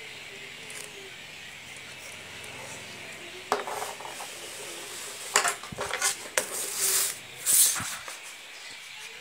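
Geometry drawing instruments handled on a notebook page: a sharp click about three and a half seconds in, then a run of knocks, clatters and paper rustling as the compass is set aside and a plastic ruler is laid on the page.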